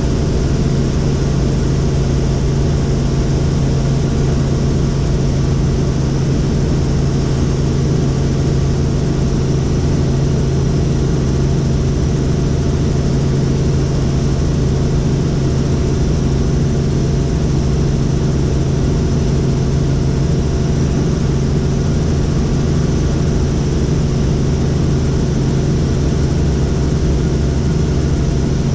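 Helicopter running steadily: engine and rotor noise as a constant loud drone, with a strong low hum and several fainter steady tones above it.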